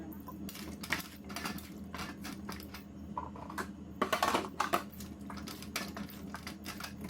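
Irregular clatter and knocking of a bowl and kitchen utensils while raw chicken is handled, with a loud flurry of knocks about four seconds in, over a steady low hum.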